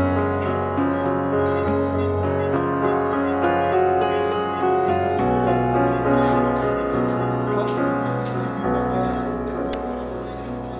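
Background instrumental music: sustained chords that change about halfway through, growing quieter near the end.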